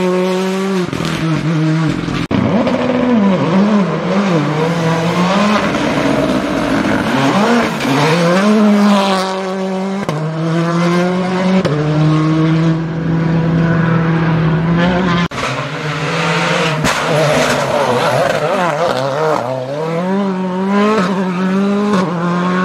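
Rally cars passing one after another at full throttle, engines revving hard with the pitch climbing through each gear and dropping sharply at the shifts. There are a few sharp cracks along the way.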